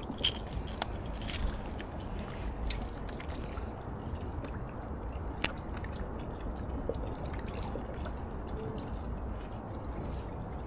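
Steady wash of river water lapping at a rocky bank, with a few sharp clicks scattered through it.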